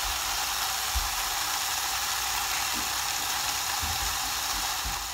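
Skewered chicken sizzling steadily under the closed lid of an electric contact grill, an even hiss with a faint low knock about a second in.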